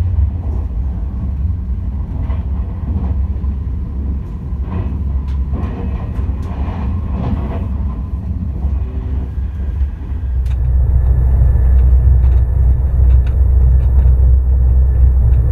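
Running noise of a TGV EuroDuplex double-deck high-speed train heard inside the vestibule by the doors: a steady low rumble with scattered clicks and knocks from the running gear. About ten seconds in, the rumble gets louder and steadier.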